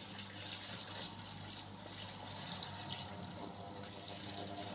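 Water poured in a steady stream from a plastic bowl into a large stainless-steel pot, filling it with cooking water.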